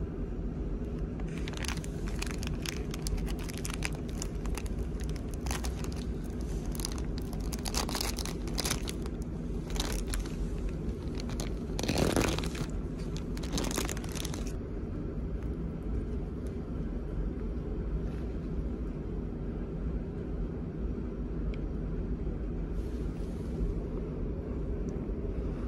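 Plastic film food packaging crinkling and being torn open, loudest about 12 seconds in, then stopping about halfway through. Underneath is the steady low hum of the ferry's engines.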